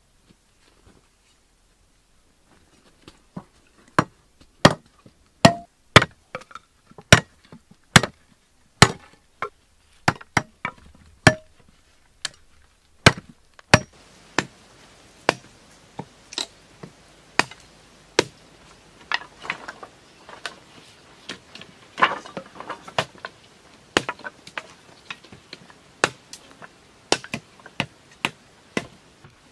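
Blade chopping and trimming wooden poles: sharp single strikes about once a second starting about three seconds in, becoming quicker and overlapping in the second half as two people chop at once.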